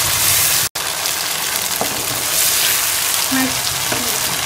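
Chicken and cream masala sizzling and frying in a wok, stirred with a wooden spoon at first. The sound cuts out for an instant just under a second in, then the sizzling carries on.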